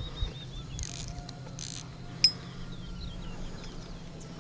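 Spinning reel being worked by hand to pull line off the spool: two short rasps, then a sharp click a little after two seconds in.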